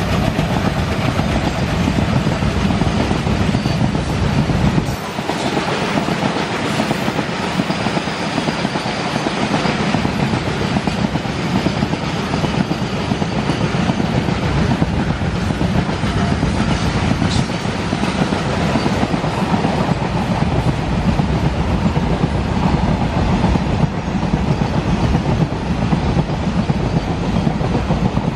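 Loaded BCNA covered freight wagons running past, their steel wheels clattering steadily over the rail joints in a continuous clickety-clack.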